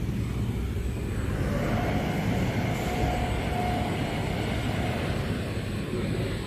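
Steady low rumble of print-shop machinery, with a faint thin whine for about two seconds near the middle.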